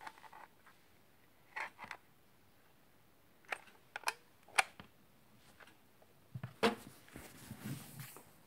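Handling noise from a phone held in the hand: a few faint, separate clicks and taps, then rustling and low thumps in the last couple of seconds as the phone is moved.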